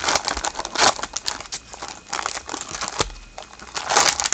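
Trading-card box and its packaging being handled and opened: crinkling and rustling of wrapper and cardboard with small taps, and a louder burst of rustling about four seconds in.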